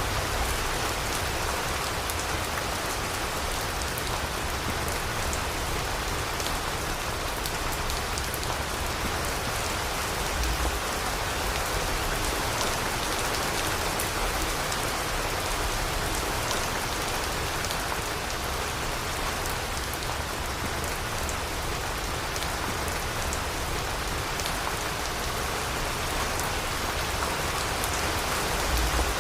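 Steady rainfall, a dense even hiss of drops with fine pattering of individual drops striking surfaces.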